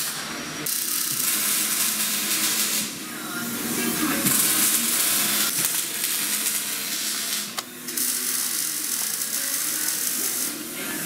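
Bench drill press running, a steady hum under an even mechanical whirr, with a brief dip about two-thirds of the way through.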